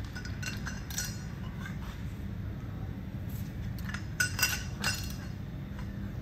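Sharp metallic clinks of a socket and long breaker bar on cylinder head bolts as they are worked loose: a few about half a second in, then a quick cluster about four seconds in. A steady low hum runs underneath.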